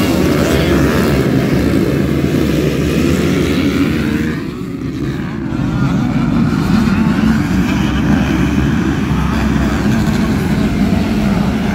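A pack of motocross bikes racing past together, many engines revving hard at once. The noise dips for about a second near the middle as the bikes move off, then swells again.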